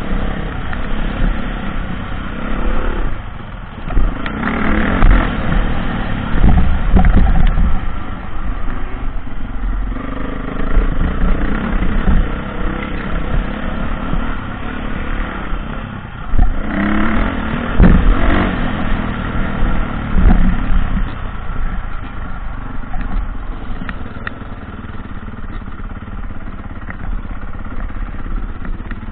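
Dirt bike engine heard from the rider's own helmet camera, revving up and down as it rides a rough dirt track. It pulls hard in two bursts of acceleration, about four seconds in and again about seventeen seconds in. Knocks and rumble from the bumpy ground run through it.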